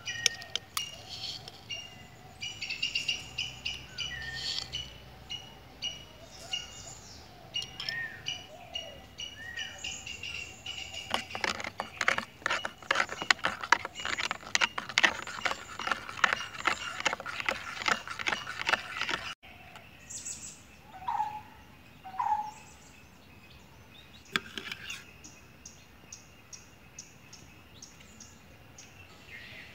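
A metal spoon stirring sugar into carrot juice in a stainless steel bowl, a fast run of clinks and scrapes against the bowl for several seconds in the middle. Birds chirp before and after.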